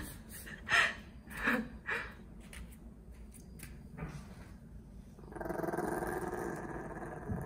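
A Maltese dog growling at being handled in her bed: a few short sounds in the first couple of seconds, then a steady growl from about five seconds in as hands take hold of her. It is a warning to be left alone.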